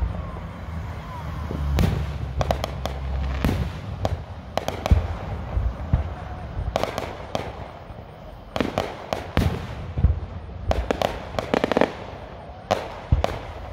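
Aerial fireworks going off: repeated sharp bangs and crackles in quick clusters, with a low rumble about two seconds in.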